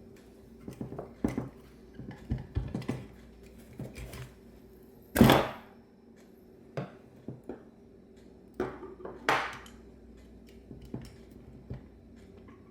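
Scattered clicks, taps and clinks of metal carburetor parts and hand tools being handled as a Bendix Stromberg WWC carburetor is taken apart, with a louder clatter about five seconds in and another about nine seconds in.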